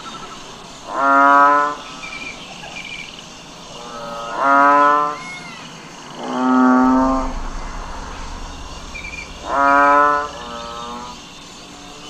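Cattle mooing: four short, level calls, each about half a second long, repeated roughly every three seconds.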